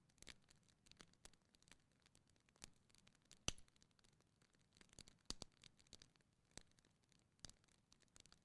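Faint crackling of a wood fire in a fireplace: scattered sharp snaps and pops at irregular intervals, the loudest about three and a half seconds in.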